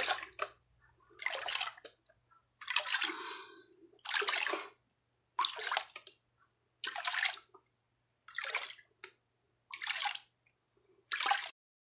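Green plastic gold pan being dipped and shaken in a tub of water, water sloshing over its rim nine times at an even pace of about one every second and a half. This is the washing-off stroke of panning, carrying away the lighter gravel and sand to leave black sand in the bottom.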